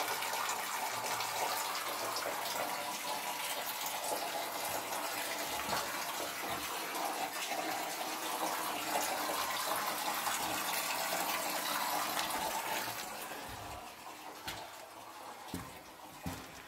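Water running steadily from a pipe. About thirteen seconds in it fades away, and a few footsteps sound on the floor.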